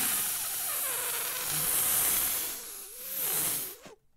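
Steady hiss that cuts out abruptly near the end.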